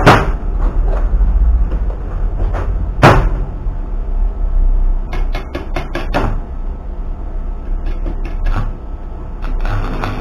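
Steel pieces knocked and set down on a steel workbench: two sharp clanks, one at the start and one about three seconds in, then a quick run of small metal clicks and taps, over a steady low hum.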